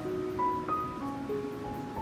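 Background music: a simple melody of held notes, each changing pitch about every half second.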